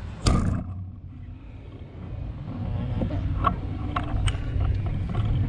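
Fishing crossbow fired once about a quarter second in: a single sharp, loud snap of the release. It is followed by low handling noise and a few scattered clicks.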